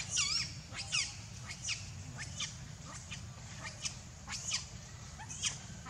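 Macaques giving short, high-pitched squealing calls that sweep down in pitch, about two a second.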